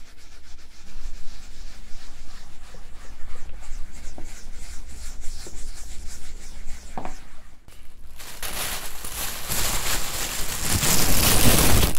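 Close, soft rubbing and handling around the head with a faint steady low hum and a few small clicks. From about eight seconds a loud, steady rushing hiss starts and grows louder.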